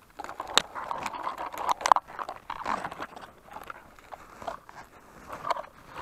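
Dry twigs and leaf litter crackling and rustling close by as a gloved hand pushes through brush: a quick run of sharp snaps and crunches, busiest in the first three seconds and again near the end.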